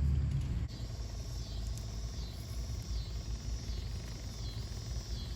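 High-pitched whine of a 1/24-scale RC crawler's electric motor and drivetrain straining on a climb. The pitch dips and recovers several times as the throttle is worked, over a low rumble. The whine begins under a second in.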